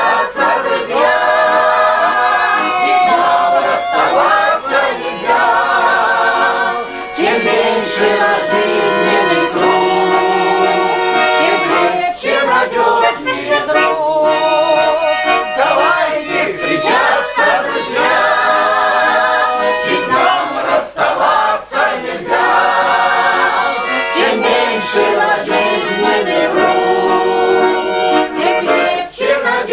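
Accordion playing a tune with sustained, wavering chords, loud and continuous.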